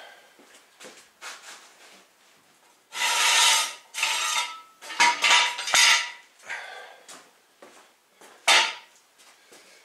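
Metal hand tools and parts clinking, clattering and scraping as they are handled and put down. There is a longer rasping stretch of about a second roughly three seconds in, and a sharp clack a little before the end.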